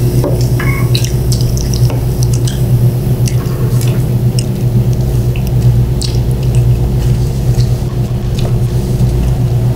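Table-side eating sounds: chopsticks clicking against plates and dishes, chewing, and a drink poured from a can into a cup near the start, over a steady low hum.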